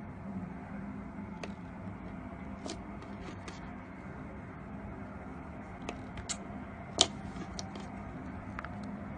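Slime being worked by hand, giving scattered small clicks and pops, with one sharper pop about seven seconds in, over a steady low hum.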